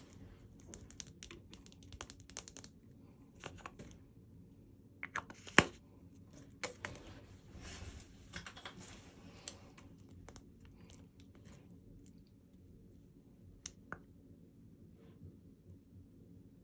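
Packaging being handled and opened by hand: scattered taps and clicks with short bursts of crinkling and tearing. One sharp click about five and a half seconds in is the loudest sound, and the handling thins out in the second half.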